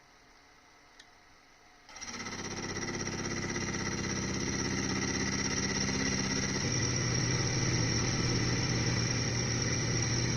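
Small benchtop machine-tool motor starting about two seconds in and spinning up to a steady whine with many overtones. Its low tone shifts and strengthens about six and a half seconds in.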